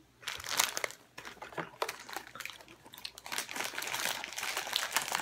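Plastic snack packaging being handled and crinkling: irregular crackles, sparse at first and getting busier in the second half.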